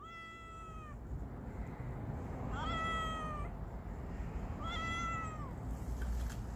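A stray cat meowing three times, about two seconds apart, each meow high-pitched and about a second long, dipping slightly at the end.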